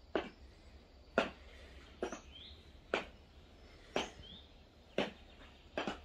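High-heeled boots clicking on flagstone, one slow step about every second, seven steps in all. Short rising bird chirps sound in the background.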